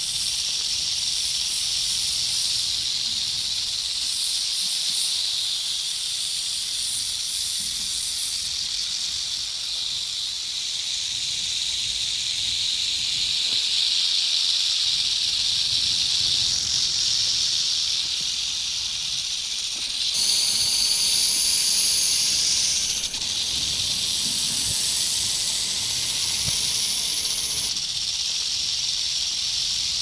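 Snake hissing sound effect: an unbroken, steady hiss with no pauses for breath. A second, higher and sharper hiss is layered on top at the start and again for several seconds past the middle, where it is loudest.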